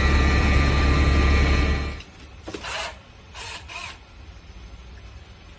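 A loud, steady mechanical drone with a strong low hum stops suddenly about two seconds in, followed by a few short scraping and clicking handling noises.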